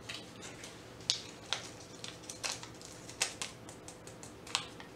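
Irregular light crackles and clicks of beef bouillon being crumbled between the fingers and its small wrapper handled, with a few sharper ticks standing out.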